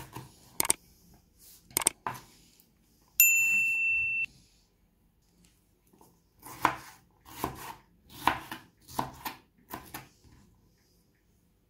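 Kitchen knife knocking on a cutting board as vegetables are diced: a few separate strokes, then a run of irregular strokes in the second half. About three seconds in, a single electronic beep sounds for about a second; it is the loudest sound.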